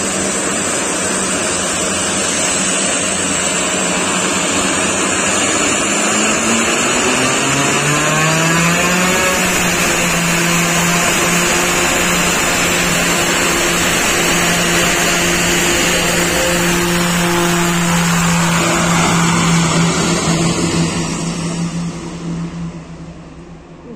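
Twin-turboprop commuter plane's engines powering up for takeoff: the pitch climbs steeply for a few seconds, then holds a steady drone at full power. The sound fades over the last few seconds as the plane rolls away down the runway.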